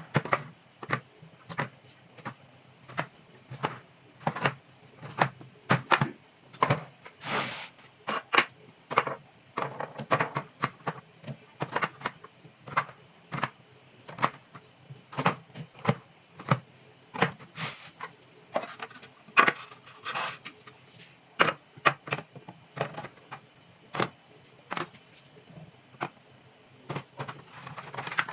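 Food and drink containers being handled and set down one after another while a mini fridge is organized: a steady string of light knocks and clicks, about one or two a second, with a couple of longer rustles.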